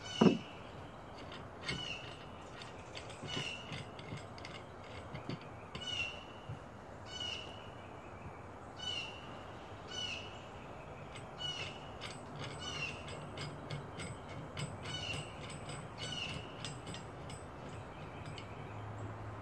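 A C-clamp valve spring compressor's screw being backed off, squeaking once with each turn, about every one and a half seconds. A sharp knock comes just after the start.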